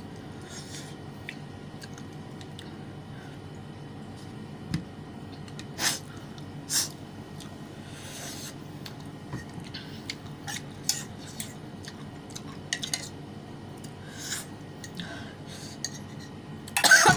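Metal spoon and fork clinking and scraping against a plastic yogurt cup and a ceramic plate while eating: scattered light clicks over a steady low hum, with a short louder burst near the end.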